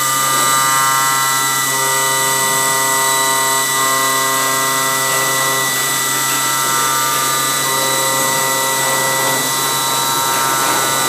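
CNC pattern-cutting machine running: a steady whine made of several high tones over a constant low hum, with some tones dropping out and coming back every few seconds as its motors move.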